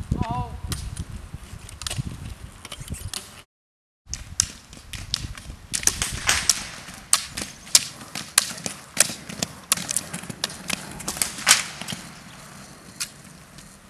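Roller-ski poles striking asphalt: a quick, irregular run of sharp clicks from the pole tips as skiers push along. The sound cuts out for a moment about three and a half seconds in.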